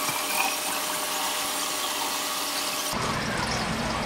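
Water streaming from a reverse-osmosis drinking-water faucet into a glass pitcher in a stainless steel sink: a steady hiss with a faint steady whine under it. About three seconds in the flow stops and only a low hum remains.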